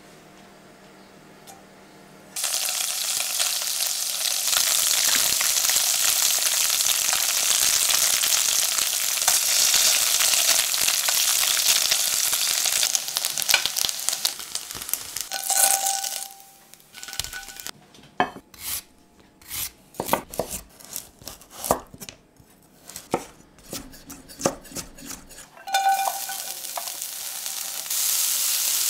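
Tofu strips frying in hot olive oil in a steel pan: a loud, dense sizzle starts suddenly a couple of seconds in and holds steady. About halfway through the sizzle drops away and a run of separate light clicks and knocks follows. Near the end sizzling starts again as shredded carrot cooks in the pan.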